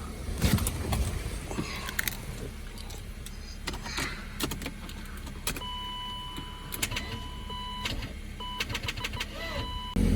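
BMW 318i being jump-started. Clicks and knocks over a low engine hum, then a steady electronic warning chime from the car, broken by short gaps. Right at the end the engine catches and runs, suddenly much louder.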